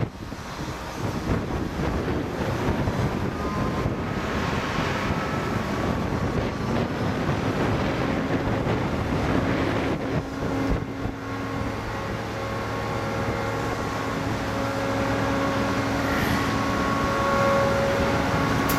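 Steady road-traffic noise from a busy multi-lane street below. About ten seconds in, a steady mechanical hum with several held tones joins it.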